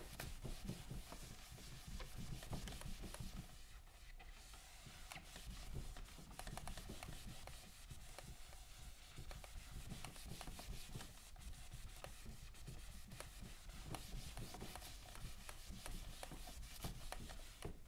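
Blue chenille microfiber cloth being rubbed across a whiteboard to erase dry-erase marker: faint, repeated wiping strokes.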